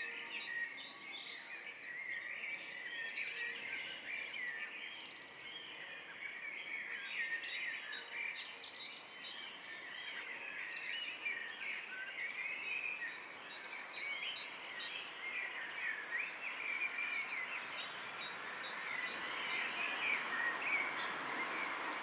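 Dawn chorus: many songbirds singing and chirping at once, their songs overlapping without a break, over a steady background hiss that grows a little louder near the end.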